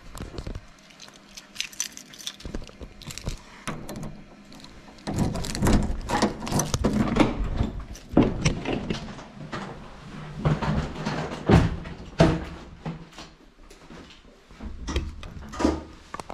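Keys jangling and a room door's lock clicking as the door is unlocked and pushed open, with a busy stretch of louder rattles and knocks in the middle and scattered handling clicks after.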